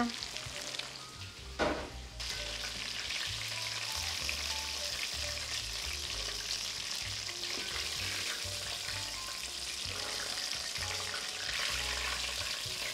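Chicken shallow-frying in oil in an enamelled cast-iron Dutch oven: a steady sizzle and crackle that grows louder about two seconds in. One short knock comes just before that.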